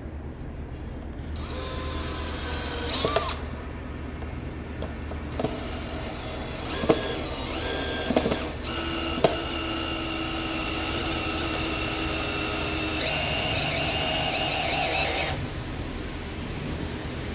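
Cordless drill/driver driving long wood screws into stacked 2x10 pine boards: the motor whines in runs that shift in pitch, with several sharp clicks along the way. It is loudest just before it stops, about two seconds before the end.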